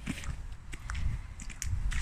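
Rubber boots squelching and splashing through shallow muddy puddle water, a footstep about every half second.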